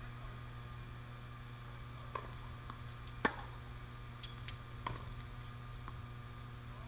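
A tennis ball bounced on a hard court a few times, faint taps about half a second apart with one louder than the rest, over a steady low hum.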